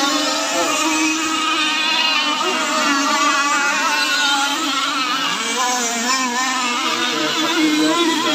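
Several gas-powered RC tunnel catamaran powerboats racing together, their small two-stroke engines whining at speed, with several pitches wavering up and down against each other.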